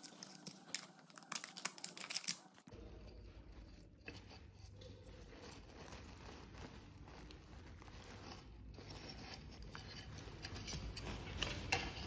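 Hard plastic parts of a toy RC tractor clicking and tapping as they are handled and pried apart: a quick run of sharp clicks in the first few seconds, then a steady low rumble under faint crackling, with a few more clicks near the end.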